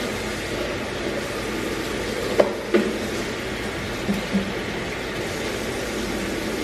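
Steady background hiss with two light clicks about two and a half seconds in, as hands roll tortillas filled with ground meat on a ceramic plate.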